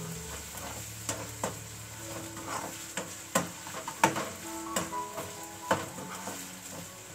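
Diced onion and potato frying in oil in a nonstick kadhai, sizzling as a metal spoon stirs and scrapes them, with irregular clicks of the spoon against the pan.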